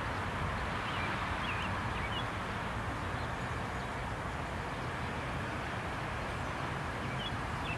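Steady low rumble and hiss of a receding train mixed with outdoor background noise, holding an even level. A few short bird chirps come about a second in and again near the end.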